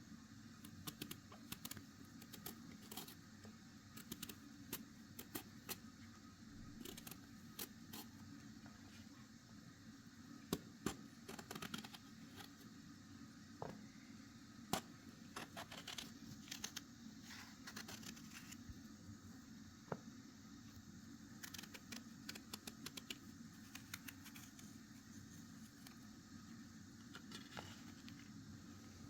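Faint, scattered clicks and light taps over a low, steady hum.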